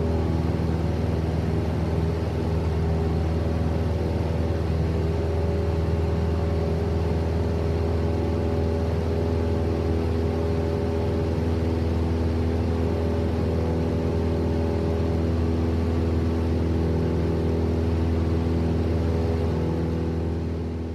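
Single-engine propeller Cessna heard from inside the cabin in flight: the steady drone of the piston engine and propeller, with a deep hum and a few steady tones, fading out near the end.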